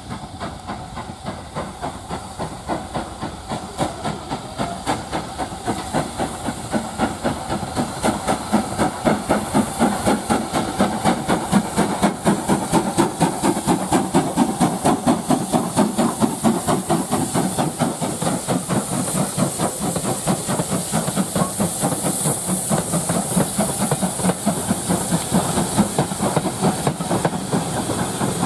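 Two steam locomotives double-heading a train, the leading one a BR Standard Class 5 4-6-0, with rapid, even exhaust chuffs and steam hiss. The chuffs grow louder over the first ten seconds or so as the engines draw near, then stay loud.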